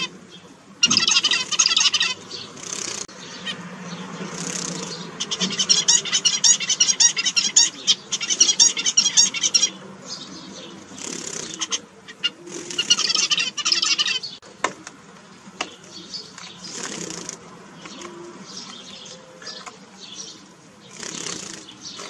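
Caged zebra finches singing and calling. There are bouts of rapid repeated high notes about a second in, from about five to ten seconds in, and around thirteen seconds, with short single calls between them.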